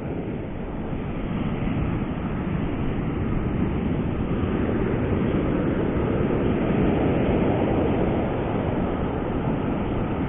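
Ocean surf on a beach: a steady rush of breaking and washing waves that swells over several seconds and eases slightly near the end.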